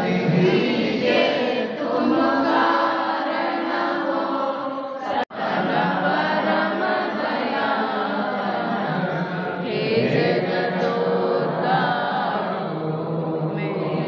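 Devotees singing an aarti together in chorus while the aarti lamp is waved. The singing breaks off for an instant about five seconds in.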